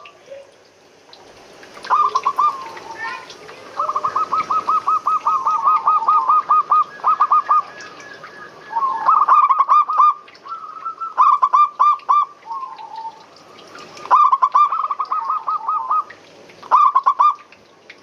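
Zebra doves (perkutut) cooing in about six phrases of rapid, repeated notes, with short pauses between the phrases.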